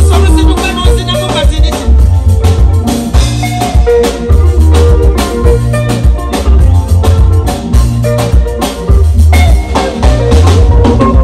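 Live band playing, with an electric bass line and a drum kit carrying a steady beat.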